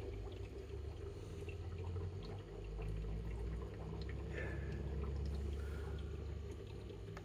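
Aquarium water trickling steadily over a low continuous hum.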